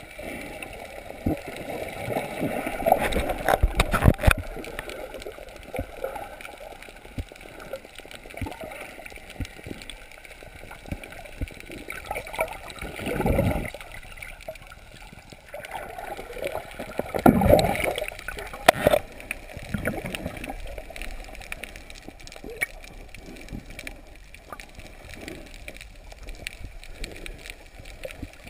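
Underwater water sound picked up by a submerged camera: a steady gurgling and sloshing, with swells of rushing, bubbling water a few times and scattered sharp clicks.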